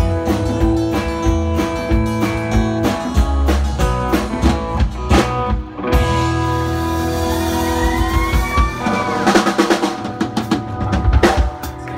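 Live band playing the instrumental ending of a song: drum kit keeping the beat under guitar, then a held chord with bending guitar notes and a drum roll into the final hits.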